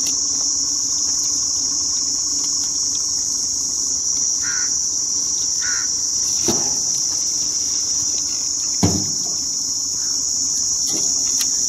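Insects chirring in a loud, unbroken high-pitched drone, with two sharp knocks, one about six and a half seconds in and one near nine seconds.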